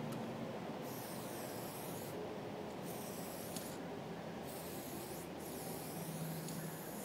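Aerosol spray paint can hissing in four bursts of about a second each, the last running longer, as paint is sprayed in strokes.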